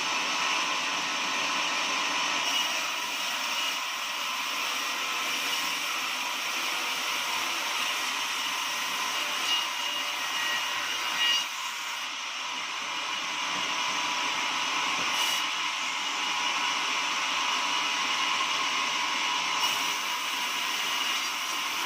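Sawmill machine running steadily: a continuous high-pitched whine and hiss, with a couple of short knocks about halfway through.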